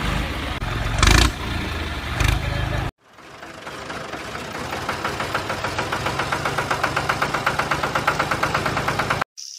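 Tractor engine chugging at an even rhythm of about seven beats a second, growing slowly louder, after a stretch of louder, rougher running with two short bursts that cuts off suddenly about three seconds in.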